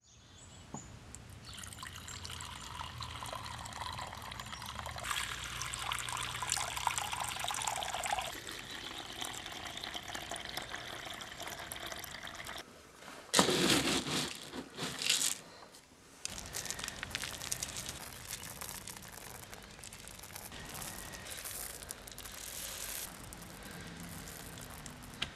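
Tap water poured from a plastic gallon jug into a heated plastic water bowl: a steady trickling, splashing stream, broken a little past halfway by a few loud sudden bumps or splashes.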